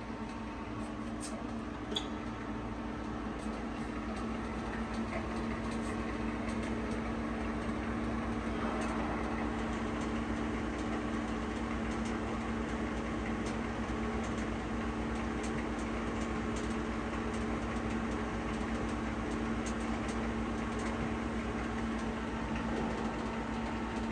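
Pinacho SP/250 tool-room lathe running with its power cross feed engaged, the cross slide traversing under feed. Its gearing gives a steady hum with a constant low drone. A faint click comes about two seconds in.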